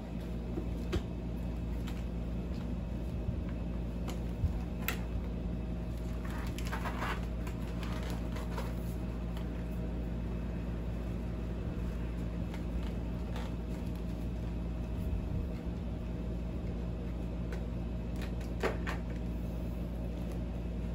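A Bell Qualifier full-face motorcycle helmet being pulled on over a balaclava and settled on the head: faint rustling, scraping and a few soft clicks, over a steady low hum.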